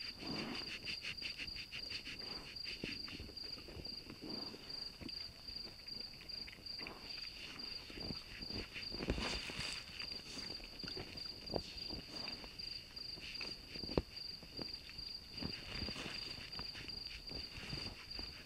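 Wild boar footsteps and rustling in dry leaf litter and soil, with occasional sharper snaps, over a steady high trill of insects.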